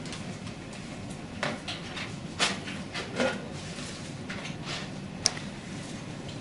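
Hard plastic desk-phone parts handled on a wooden tabletop: a few scattered light clicks and knocks as the phone base is turned over and a small plastic connecting sheet is picked up, over a steady low hum.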